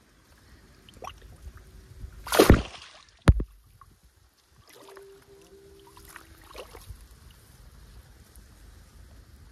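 Water splashing loudly for about half a second, followed by a single sharp knock; faint sloshing and small movements before and after.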